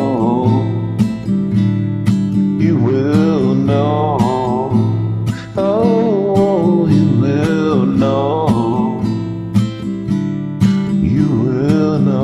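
Acoustic guitar strumming the chords of an instrumental passage, with a melody line above it that swoops up and down in pitch.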